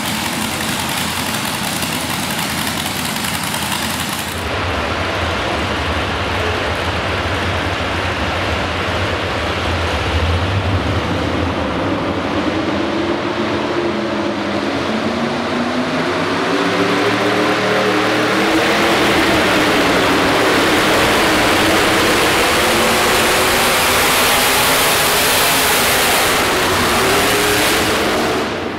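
Supercharged engines of modified pulling tractors running loud. About 4 s in the sound changes to a second tractor, whose engine revs up with rising pitch and then runs at full power under load as it pulls the sled, loudest in the second half.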